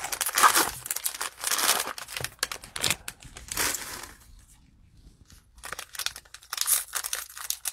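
Crinkling and tearing of plastic and foil trading-card pack wrappers as they are handled and pulled open, in crackly bursts with a short lull a little past halfway.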